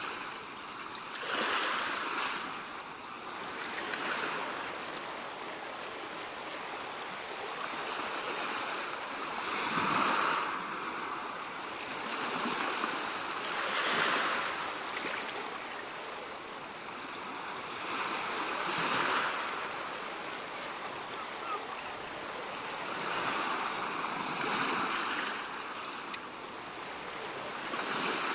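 Ocean surf: waves breaking and washing in, a steady rush that swells and falls back every few seconds.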